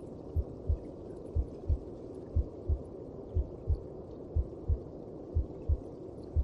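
A mother's heartbeat as heard from inside the womb: slow lub-dub pairs of low thumps, about one beat a second, over a steady muffled whooshing.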